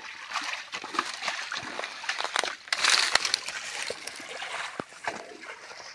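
Hands sloshing and splashing through shallow muddy water while groping for fish, with a louder splash about halfway through.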